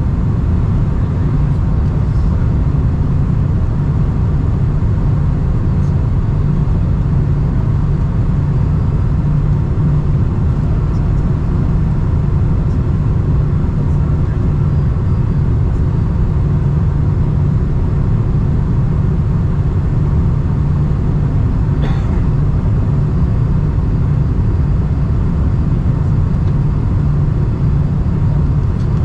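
Steady, loud low rumble of a Boeing 747-400's engines and airflow heard from inside the passenger cabin, with a faint click about two-thirds of the way through.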